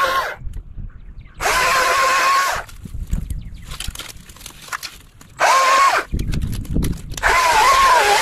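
Battery-powered Stihl chainsaw run in three short bursts of a second or more each, its electric whine dipping in pitch under load as it cuts cedar limbs. Brush rustles in the gaps as cut limbs are pulled away.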